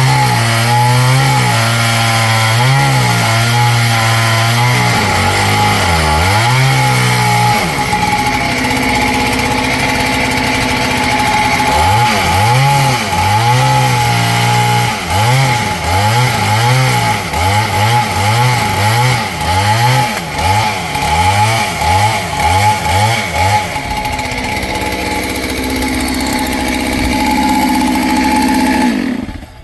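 Kit-built clone two-stroke chainsaw running, its engine revving up and down over and over, with a steady stretch and about a dozen quick rev blips, then a steady lower note before it cuts off suddenly near the end.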